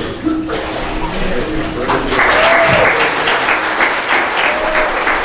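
Water sloshing in a church baptistry as a girl is immersed and lifted out. From about two seconds in, the congregation breaks into steady applause.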